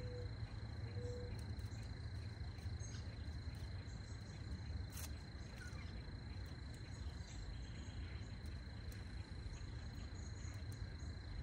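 An insect trilling on one steady high tone, unbroken throughout, over a low background rumble. A few faint clicks of garden snips cutting flower stems.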